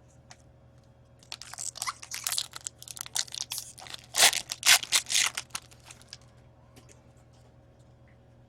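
Crinkling and crackling of card packaging being handled, a dense run of crackles lasting about five seconds and loudest past the middle.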